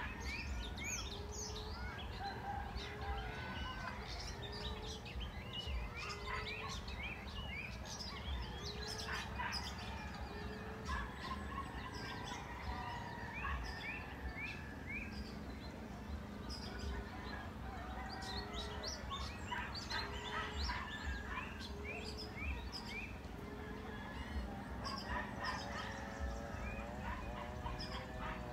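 Emerald dove cooing: a low, soft note repeated evenly about once every second and a quarter. Many short, high chirps of other birds sound over it.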